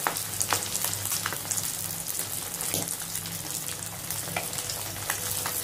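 Semolina-coated fish frying in hot oil in a kadai: a steady sizzle with scattered sharp pops and crackles, over a low steady hum.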